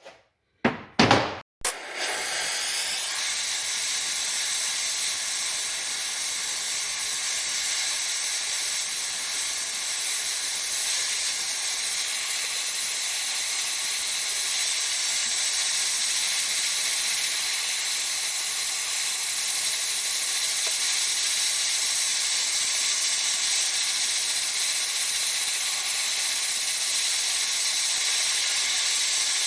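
A few sharp metal knocks, then a welder running one long continuous weld: a steady, even hiss that does not let up.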